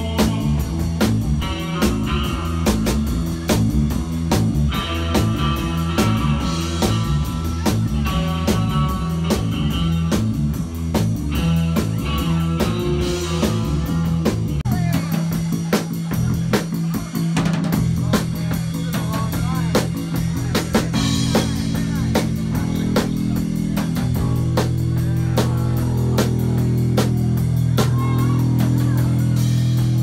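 Live band playing amplified surf guitar music, with electric guitar, bass and drum kit keeping a steady beat. In the last several seconds the band settles onto a long held low chord while the drums keep striking.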